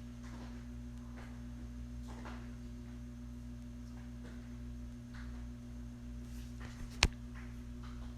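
Arno Ultra Silence Force electric fan running with a steady low hum. A single sharp click comes about seven seconds in.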